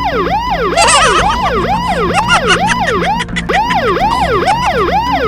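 Electronic police-style siren in a fast yelp, its pitch sweeping sharply up and sliding back down about two and a half times a second. It is a fake siren set off as a prank.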